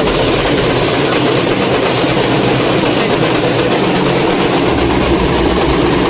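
Steady loud din of a packed street crowd with drums beating, a dense wash of sound with no clear words.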